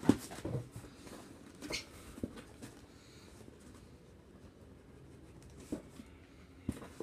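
Hands picking and scraping at plastic packing tape on a cardboard box: scattered short rustles and clicks, the sharpest right at the start, with quiet stretches between.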